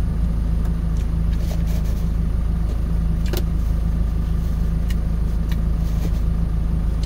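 Truck engine idling steadily, heard from inside the cab, with a few faint clicks over it, the plainest about three seconds in.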